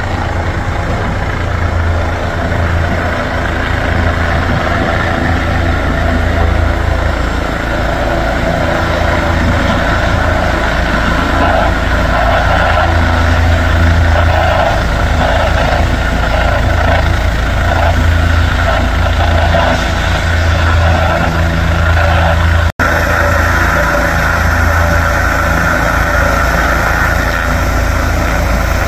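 An engine running steadily at idle, a loud low hum that holds level throughout, with a brief break about 23 seconds in.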